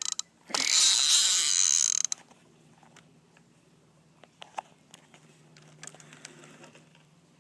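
Fishing reel mechanism ratcheting loudly for about a second and a half as line runs off it, followed by scattered faint clicks from the reel.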